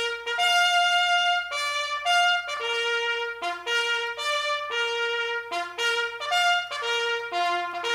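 Bugle playing a call: a continuous run of notes leaping between a few fixed pitches, some short and clipped, others held for about a second.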